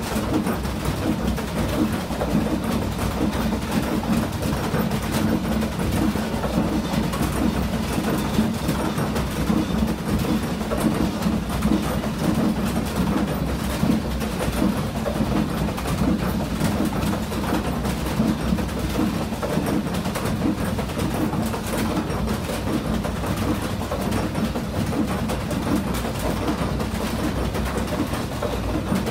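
Traditional stone grinding mill in operation: the wooden gearing and millstones run with a steady low rumble and a continuous fast rattle, the kind the vibrating feed shoe under the grain hopper makes.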